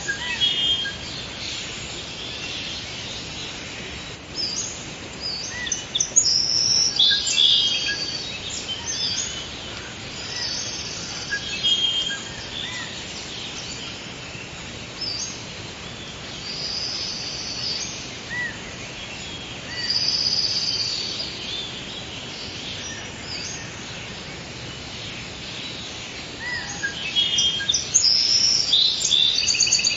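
Forest ambience: several birds calling and singing in short chirping phrases, with a steady background hiss. Bursts of song come around 6 to 8 seconds in, about 20 seconds in and near the end.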